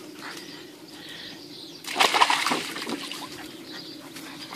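Dogs scuffling through leafy garden shrubs, with a short loud burst of rustling about two seconds in.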